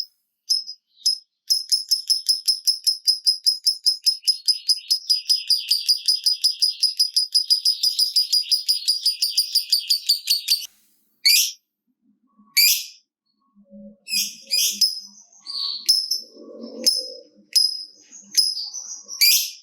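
Lovebird giving a long 'ngekek' chatter: a fast, even run of sharp, high, click-like notes, about six a second, like typing, kept up for about nine seconds before it breaks off suddenly. After that come separate shrill chirps and squeaks.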